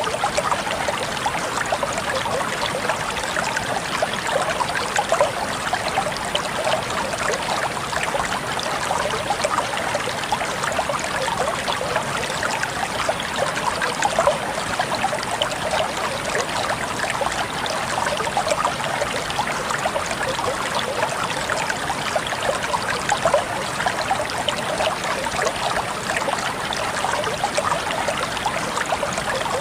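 Flowing stream water running over stones, a steady close trickling and babbling with no breaks.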